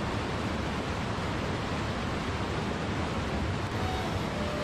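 Fast white water rushing through a narrow rocky gorge: a steady, unbroken rush of torrent noise.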